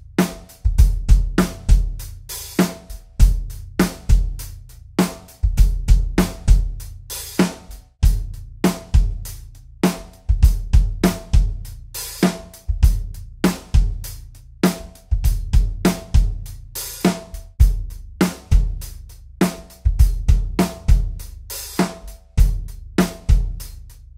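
Drum kit playing a steady groove: kick drum, snare and hi-hat, with a crash cymbal about every five seconds. The kick wears a Remo SMT Ambassador pre-dampened single-ply head, first the clear version and then the coated one. Its built-in muffling ring gives a dead, muffled, punchy kick.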